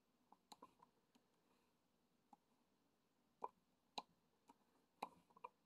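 Near silence broken by about ten faint, scattered clicks and light taps, irregularly spaced, a little firmer in the second half.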